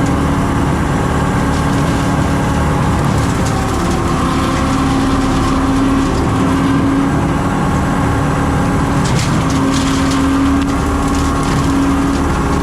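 John Deere 326E skid steer's engine running steadily under load, driving a hydraulic brush cutter, with a steady tone over the engine noise. About nine seconds in, a short crackle of brush or branches being cut.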